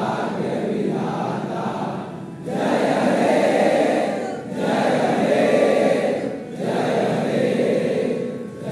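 A group of boys singing together in unison, in held phrases of about two seconds each with brief breaks between them.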